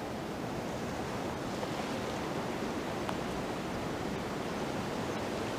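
Steady outdoor hiss of wind and moving water, with no distinct events.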